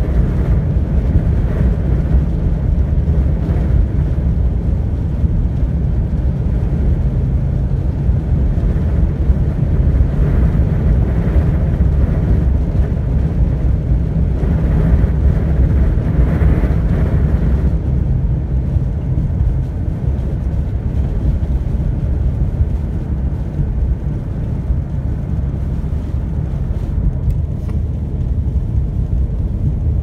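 Car driving through a snowstorm, heard from inside the cabin: a steady low rumble of engine and road noise with wind against the vehicle, easing a little after about two-thirds of the way.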